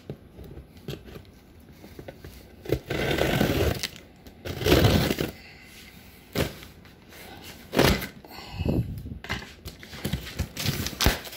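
Flaps of a large cardboard box being pulled open and bent back by hand: scraping, creasing and sharp cracks of cardboard in irregular bursts, the loudest about halfway through.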